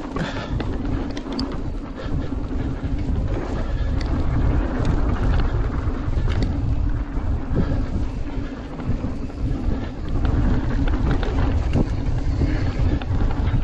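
Mountain bike riding fast down a dry dirt trail: wind buffeting the microphone and tyres rumbling over packed dirt, with scattered clicks and rattles from the bike.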